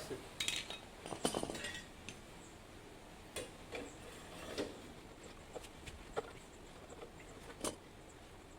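Scattered light metallic clinks and knocks of motorcycle exhaust parts and tools being handled, busiest in the first two seconds, then a few sparse taps.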